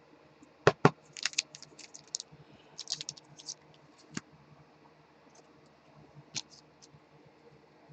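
Light, sharp clicks and taps: two louder ones a little under a second in, a quick irregular flurry over the next few seconds, then a few scattered ones.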